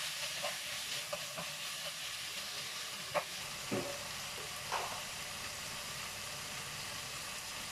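Meat, tomato and onion sizzling steadily in a nonstick frying pan. In the first few seconds a wooden spatula stirs and knocks against the pan, with a few short clicks and knocks, the last near the middle as the spatula is set down; after that only the sizzling goes on.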